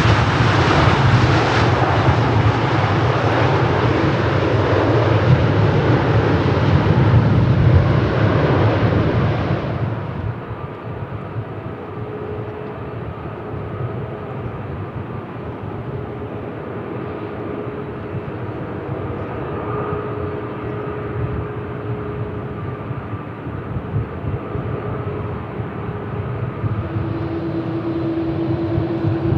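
Jet airliner engines running loud with a low rumble, cutting abruptly about ten seconds in to a quieter, steady engine whine with a few held tones; a new steady tone comes in near the end.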